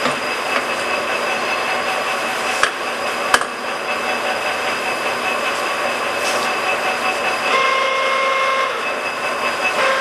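Summit 36DC heavy-duty engine lathe running with its carriage on power rapid traverse: a steady geared whine with several held tones. Two sharp clicks come a few seconds in, and the pitch of the whine shifts about three quarters of the way through.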